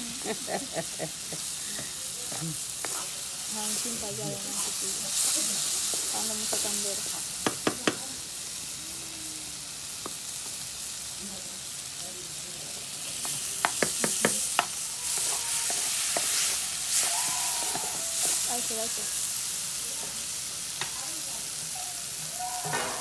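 Diced onion, garlic and tomato sizzling in butter in a frying pan while being stirred with a wooden spoon. Two short runs of sharp clicks break in, about a third of the way through and again a little past halfway.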